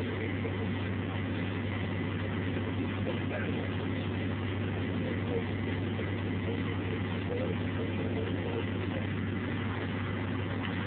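Small narrow-gauge diesel shunting locomotive's engine running steadily, heard with a constant low hum and a noisy haze that neither rises nor falls.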